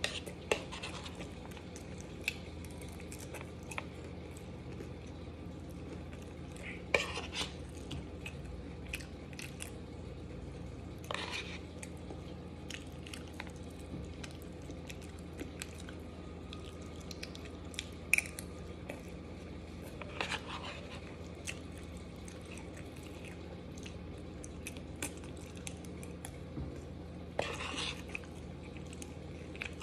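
Close-up eating sounds of chicken Alfredo pasta: chewing and a few short slurps, with a metal spoon clicking and scraping against the bowl several times, over a steady low hum.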